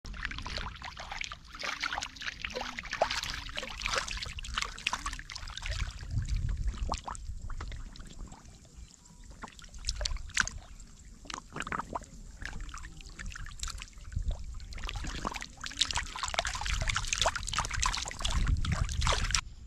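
Large catfish thrashing in shallow, muddy paddy water: irregular splashing and slapping of water in bouts, with a quieter spell around the middle.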